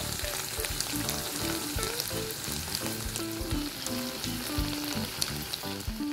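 Tofu cubes frying in a hot pan of oil and sauce, a dense, steady sizzling crackle, with faint music underneath.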